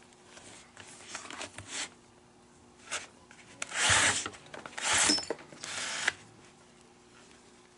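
Leather lace being pulled through the lacing holes of a baseball glove during relacing. A few soft rustles come first, then three long swishing pulls about four to six seconds in.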